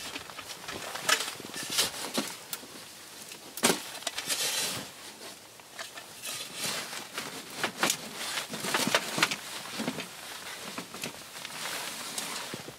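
Snow being dug and packed with a small shovel and gloved hands: irregular crunching and scraping strokes, some sharper and louder than others.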